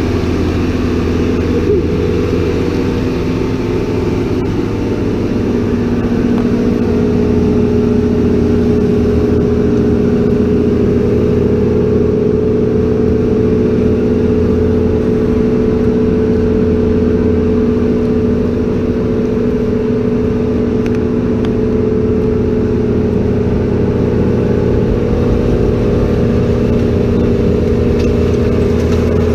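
Self-propelled grape harvester's engine running steadily at working speed, a continuous drone with a steady hum, a little louder from about six seconds in.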